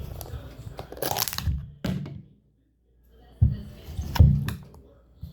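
Crunching and crackling handling noises of slime-making materials, loudest about a second in. There is a brief dead-silent gap about halfway through.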